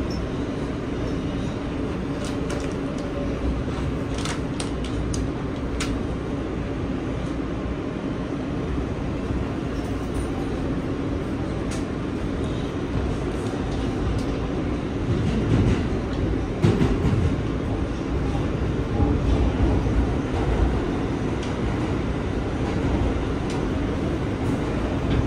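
New York City Subway L train heard from inside the car, running at speed through the tunnel and through a station without stopping: a steady rumble with sharp clicks of the wheels over the rails. About two-thirds of the way through comes a run of louder knocks and thumps.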